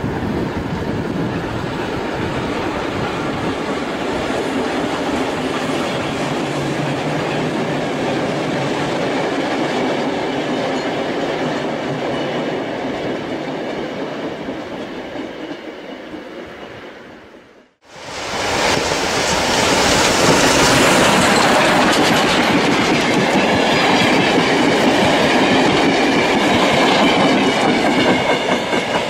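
Carriages of a steam train rolling steadily across a steel truss railway bridge. After a sudden cut about two-thirds of the way through, wooden passenger carriages pass close by on the track, their wheels running on the rails louder.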